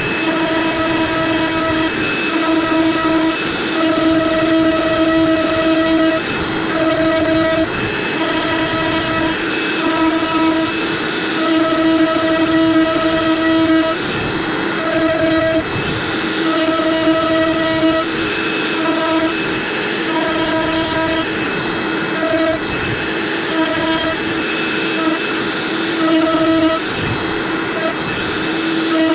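CNC router spindle running while carving maple: a steady high-pitched whine over a noisy hiss, its strong tone cutting in and out irregularly every second or so as the bit moves through the cut.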